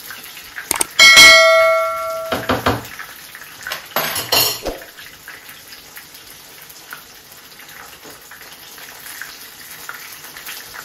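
Metal kitchenware struck: one loud clang about a second in that rings on for over a second, followed by a few shorter clatters, then the faint steady sizzle of breaded chicken shallow-frying in a pan of oil.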